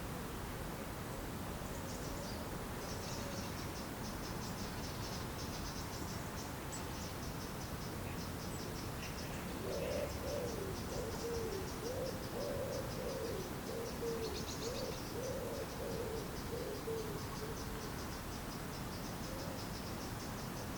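Lakeside wildlife ambience: a fast, high, evenly ticking trill from an insect or small bird runs through most of it. From about halfway a bird gives a run of low hooting notes for some seven seconds, over a steady low hiss.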